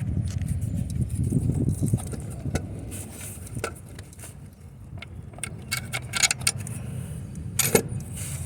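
Scattered metallic clicks and clinks of hand tools and parts being handled while working on a car's alternator and hoses, over a low steady rumble.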